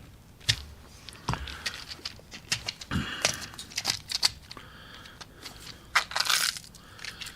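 A small box of .22 LR cartridges being opened by hand: a string of irregular crinkling, tearing and clicking handling noises.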